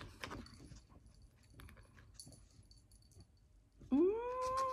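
Faint clicks of a plastic spout cap being twisted off a sauce pouch, with no seal breaking. Near the end a household pet gives a drawn-out cry that rises in pitch and is then held for about a second.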